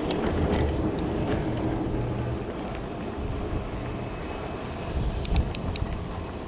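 Riding noise from a fat-tire e-bike: wind buffeting the microphone over a steady rumble of the tires on a bumpy road. A few sharp rattles come about five seconds in.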